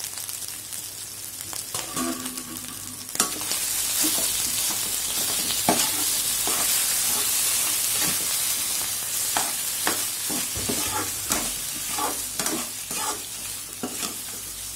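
Mashed boiled potatoes frying in hot oil in a kadhai with onions, green chilli and ginger while a steel spoon stirs and breaks them up. The sizzle of the oil rises sharply about three seconds in, and repeated scrapes and taps of the spoon on the pan run over it, closer together in the second half.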